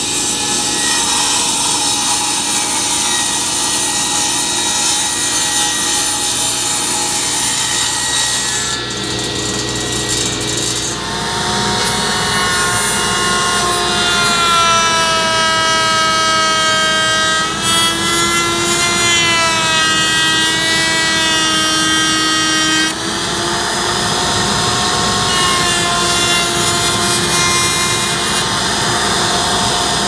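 Router table running at high speed, a bearing-guided flush-trim bit cutting a rounded corner into a melamine-faced particleboard shelf. Its whine sags and wavers in pitch for several seconds in the middle as the bit bites into the board.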